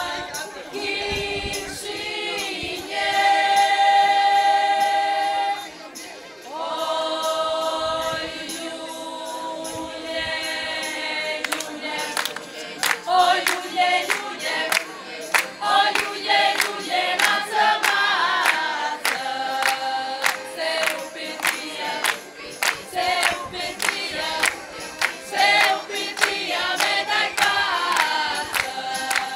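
A group of voices singing an Arbëreshë vallja folk song in long held notes. About twelve seconds in, rhythmic hand-clapping joins the singing.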